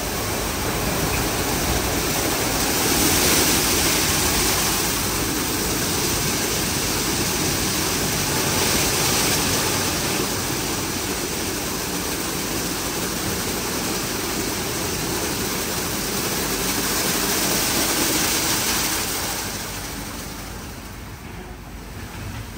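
WashTec SoftCare2 Pro rollover car wash at work, with a steady rushing of water spraying onto the car. It eases off and gets quieter near the end.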